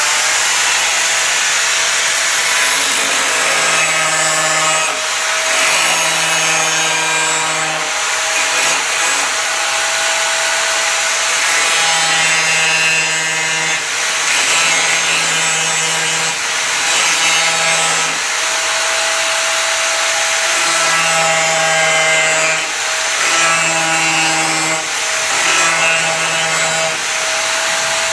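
Bosch Professional angle grinder running continuously with a steady whine, grinding down the protruding steel tips of screws driven through a wooden gate. A lower hum comes and goes every second or two as the disc bears on the metal and eases off.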